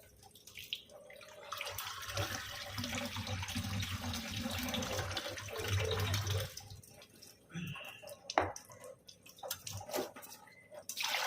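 Water running into a vessel of basmati rice as it is rinsed, a steady rush for about five seconds that then stops; a few scattered knocks and splashes follow as the rice is washed.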